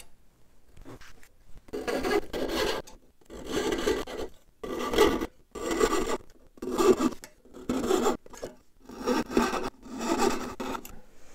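Coping saw cutting through hardwood, a rasping stroke about once a second after a quiet first second or so. The thin blade is cutting the web of wood between a row of square mortises in a chair back splat.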